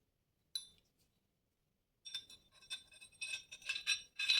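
Metal Glock pistol parts clinking as the barrel is handled and fitted: one sharp click about half a second in, then from about two seconds a run of light metallic clinks and taps with a ringing tone, loudest near the end.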